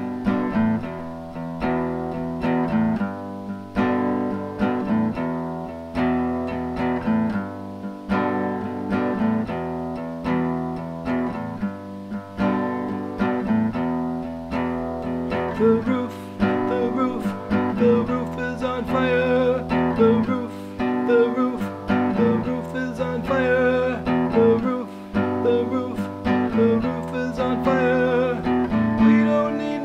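Acoustic guitar strummed in a steady rhythm, playing a song's intro chords, with a voice joining in from about halfway through.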